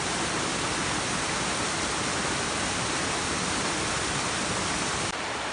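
Steady rush of falling water from a waterfall. About five seconds in it becomes slightly quieter and duller.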